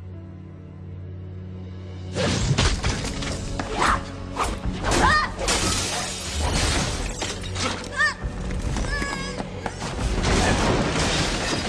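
Action-film fight soundtrack: a low, sustained music drone, then about two seconds in a rapid run of crashes, clashes and impacts with brief pitched rings, all over music.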